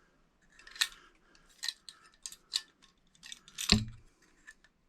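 Handling noise from an electrical box and Romex cable being worked by hand: a string of light clicks and rustles, with one louder knock about three-quarters of the way through.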